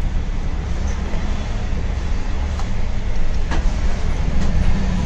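Steady low rumble of background noise, with a few light clicks, the clearest about three and a half seconds in.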